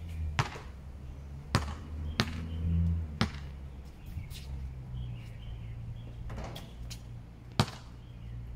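Basketball bouncing on a hard outdoor court: four sharp single bounces roughly a second apart in the first three seconds, then a pause, then one more loud bounce near the end.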